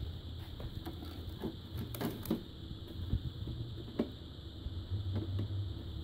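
Scattered light clicks and knocks from hands and camera handling around an opened LCD TV chassis, over a steady low hum.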